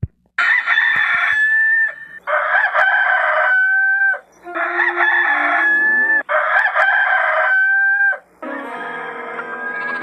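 Rooster crowing five times in a row, about two seconds apart, each crow a harsh start followed by a long held note that drops away at the end.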